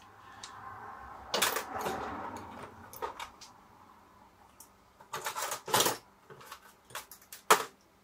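Hand tools and small metal parts being handled on a workbench: scattered clicks and clatter, with a rustling scrape in the first couple of seconds, a quick run of clicks past the middle and one sharp click near the end.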